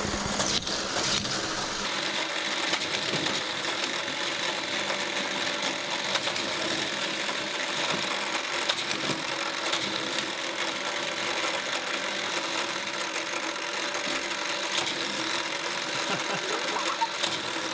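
Motorised booster of a toy car racetrack whirring steadily, with small toy cars clicking and rattling along the plastic track.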